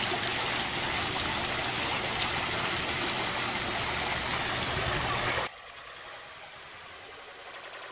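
Water from a tiered stone fountain splashing and pouring into its basin, a steady rush of water. About five and a half seconds in it drops suddenly to a much quieter hiss.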